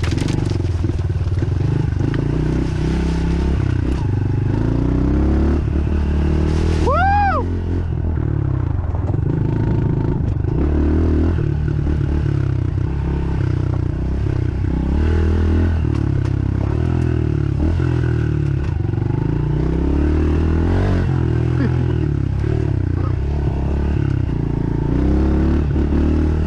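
Dirt bike engine running while riding a trail, its pitch rising and falling again and again as the throttle opens and closes, with clatter from the bike. About seven seconds in, a short high tone rises and falls.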